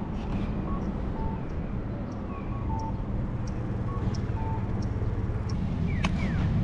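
Steady low rumble of road traffic and wind noise on a moving bicycle's microphone, with a few short, faint high chirps over it.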